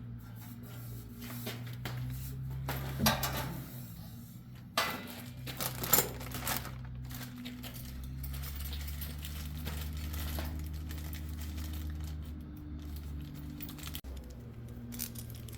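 Clinks, taps and scraping of sliding-door track hardware being handled as an end piece is fitted onto the track, with a few sharper knocks between about three and seven seconds in, over a steady low hum.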